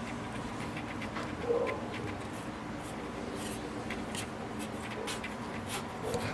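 Napping kittens stirring, with scattered small clicks and rustles and a couple of brief soft squeaks, over a steady low hum.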